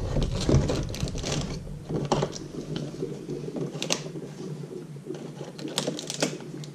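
Irregular clicks, scrapes and rustling of a hand tool prying and poking inside a cardboard Lego advent calendar compartment to work the packed minifigure loose.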